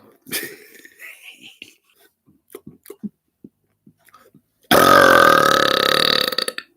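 A man's loud, drawn-out burp lasting about two seconds, starting near the end and cutting off abruptly. It is preceded by a few faint mouth and breath sounds.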